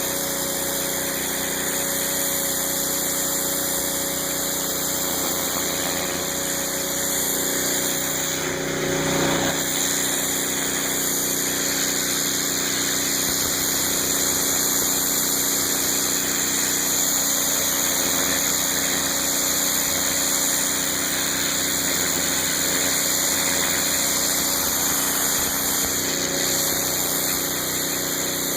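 Northstar pressure washer running steadily: its 9 hp Honda GX single-cylinder engine drives the high-pressure pump at a constant speed.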